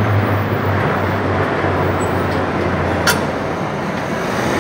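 Low drone of a pair of propeller transport aircraft passing overhead, fading out over a steady wash of street and coach-station traffic noise. A short sharp sound cuts in about three seconds in.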